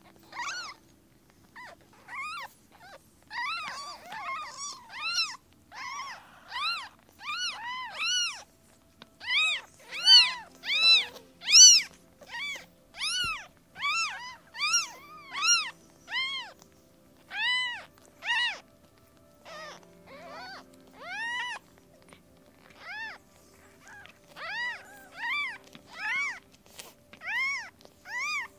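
Kittens mewing over and over: short, high-pitched calls that rise and fall, about one to two a second, some overlapping, with a brief lull a little past two-thirds of the way through.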